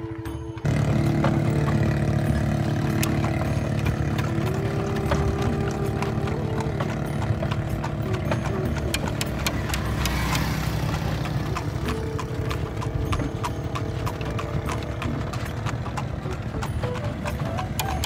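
Hooves of a cart horse clip-clopping at a steady trot on an asphalt road while it pulls a two-wheeled cart. The hoofbeats start sharply about a second in.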